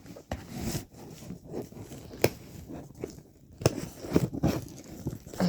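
Scissors cutting through packing tape on a cardboard box: irregular sharp snips and crackling of tape and cardboard, the loudest snips about two seconds and three and a half seconds in.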